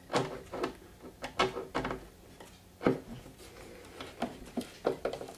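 Screwdriver turning cam-lock fasteners inside an IKEA KULLEN chest of drawers, clicking and knocking against the panels in a string of irregular clicks and knocks as the top is locked down.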